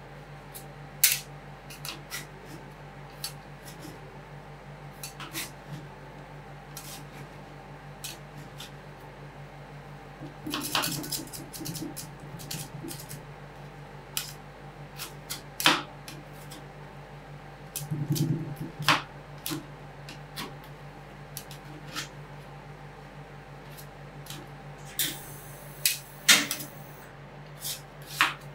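Metal spatulas tapping, chopping and scraping on an ice cream roll cold plate, in scattered sharp clicks with a few short bouts of scraping. A steady low hum runs underneath.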